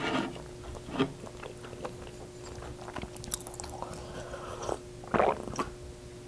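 A person chewing a mouthful of carne asada fries close to the microphone, with scattered small wet mouth clicks. About four seconds in comes a sip of water from a glass, followed by a few louder mouth sounds.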